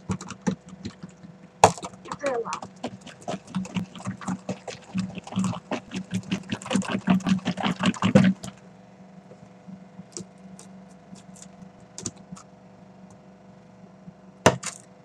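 A metal fork stirring slime fast in a plastic tub: rapid clicking and scraping against the tub for about eight seconds, then only a few scattered clicks.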